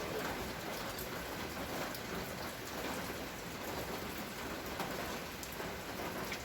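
Steady rain falling and pattering on surfaces, with scattered individual drops ticking through it.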